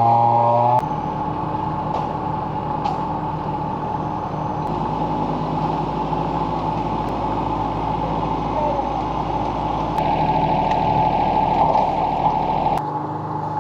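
An engine running steadily, with the sound shifting abruptly several times as the shots change.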